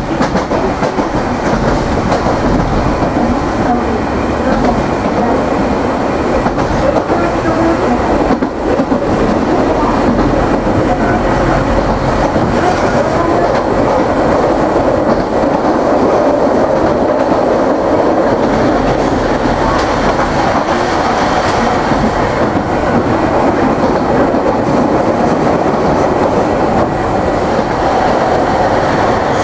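Hiroshima Electric Railway 3700 series resistor-controlled tram running along the line, heard from inside the car: a steady rumble of wheels on rail. The traction motor sound is barely audible, and a faint whine rises a little in pitch in the second half.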